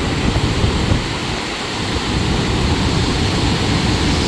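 Steady roar of rushing white water at Gullfoss waterfall, mixed with wind buffeting the microphone, a loud even noise heaviest in the low end.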